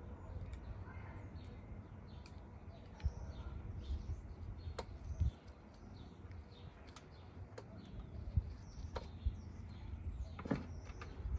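Gloved hands handling succulent cuttings and pressing them into loose potting soil in ceramic pots: soft rustles with scattered small clicks and knocks, and faint bird chirps in the background.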